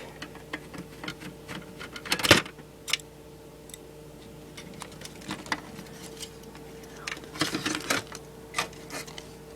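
Scattered small clicks, taps and metal knocks as screws are turned out with a screwdriver and a hard drive is worked loose from a desktop computer case, with one louder click about two seconds in. A steady low hum runs underneath.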